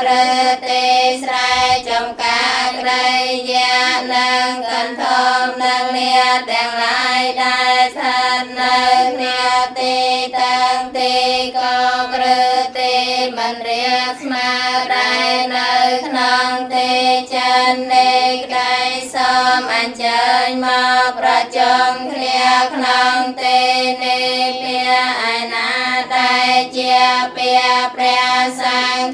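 Khmer Buddhist nuns chanting a Dhamma text in Pali and Khmer, recited on a nearly unchanging pitch with a quick, even syllable rhythm and brief dips for breath.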